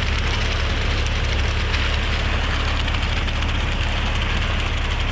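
A large engine running steadily with a deep low hum, from heavy machinery at a concrete pour.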